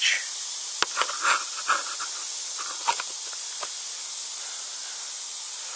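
Steady high-pitched insect chorus in summer woods, with a few short clicks and brief chirps in the first three seconds or so.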